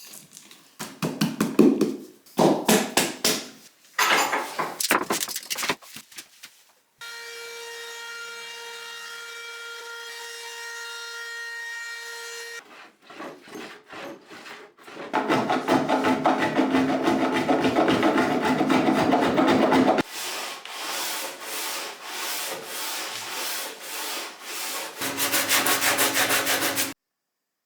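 A run of woodworking tool sounds on wood. It opens with quick rubbing and sawing strokes. A power tool's motor then hums steadily, followed by loud, dense cutting or sanding noise and more rhythmic strokes, which cut off suddenly near the end.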